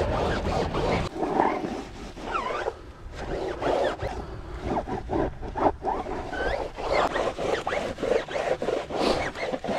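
Wet scrub sponge rubbing back and forth over a tire sidewall lathered with foaming degreaser: a run of repeated scrubbing strokes, with a few short squeaks.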